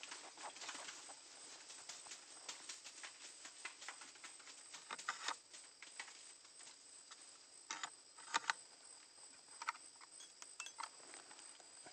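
Irregular small crackles and ticks of dry twigs and leaves being disturbed, with a few sharper snaps about five and eight seconds in.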